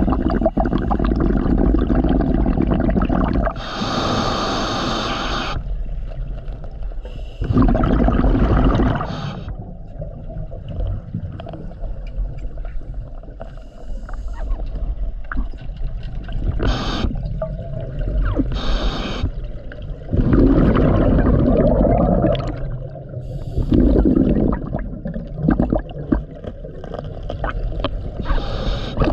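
Scuba diver breathing through a regulator underwater: hissing inhalations alternate with louder gurgling rushes of exhaled bubbles, several breaths over a steady low rumble of water.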